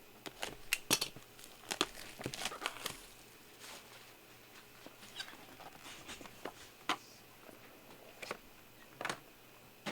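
Trading cards and their packaging being handled: scattered light clicks, taps and rustles, busiest in the first few seconds, then a few isolated clicks.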